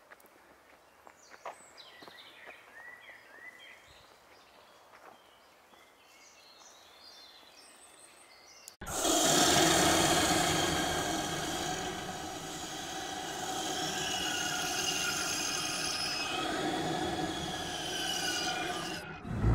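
Quiet woodland with a few short bird chirps. About nine seconds in, a loud, dense, steady drone with many held tones cuts in abruptly and stays loud.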